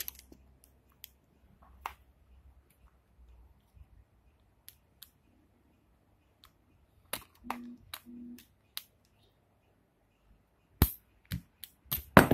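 Scattered small metal clicks and taps of a screwdriver and clutch tool working at an RC car engine's clutch shoe and spring, with a sharp click near the end and a cluster of louder clicks at the very end.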